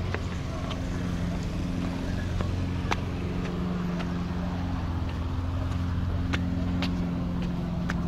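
Steady low hum of city traffic, with scattered sharp clicks and taps over it.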